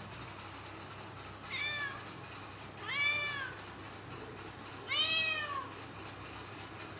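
A cat meowing three times, about a second and a half apart. Each meow rises and then falls in pitch, and the second and third are louder and longer than the first.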